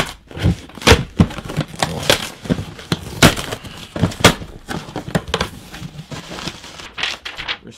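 Cardboard shipping box being opened by hand: packing tape ripped off and the flaps pulled back. There is a string of sharp cracks and rips over rustling cardboard, loudest at the start.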